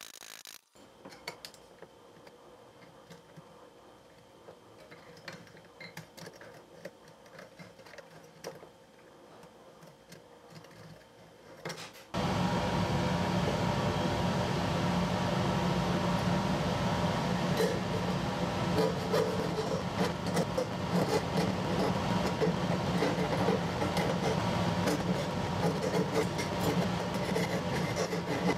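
Jeweller's saw cutting the rim of a thin fine-silver cup, sped up in time-lapse so the strokes merge into a loud, steady buzz that starts suddenly about twelve seconds in. Before that there are only faint, scattered light clicks.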